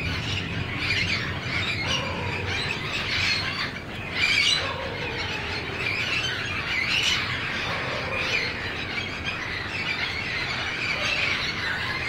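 A flock of wild parrots calling in a palm tree: a loud, continuous chorus of overlapping squawks and screeches, with louder flurries about four and seven seconds in.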